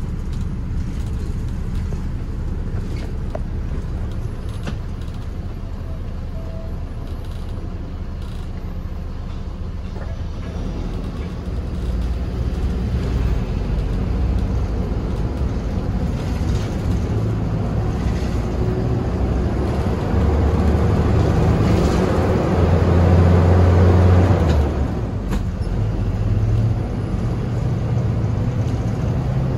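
Minibus engine and road noise heard on board, a steady rumble. The engine note grows louder partway through and is loudest about three-quarters of the way in, as though pulling hard, then eases off near the end.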